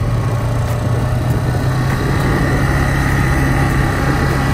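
Quad bike engine running steadily as the ATV rides along, a low drone with a faint higher whine joining it about two seconds in.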